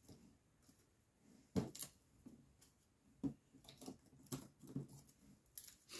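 Small cosmetic sample sachets being handled and sorted: a string of light crinkles and taps, spaced irregularly.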